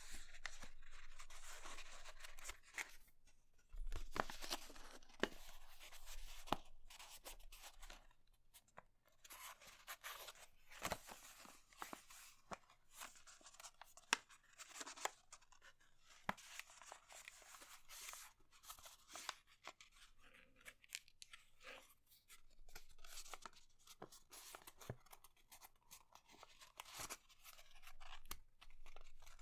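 A sheet of paper being folded by hand into a paper airplane: rustling and sliding against a cutting mat, with crisp creases pressed down and many short, sharp ticks as the paper is handled.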